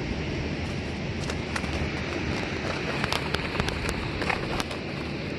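Black plastic bag crinkling and crackling in irregular sharp clicks as it is shaken out to empty the fish, over a steady low rumble of wind on the microphone.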